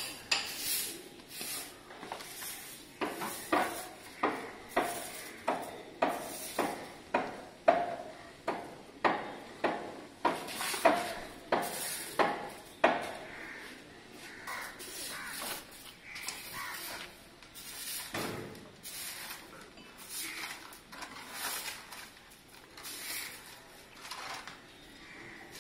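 Grass broom sweeping dust and dry leaves across a concrete driveway into a plastic dustpan: a steady run of swishing strokes, about one and a half a second, that turn softer and more irregular about halfway through.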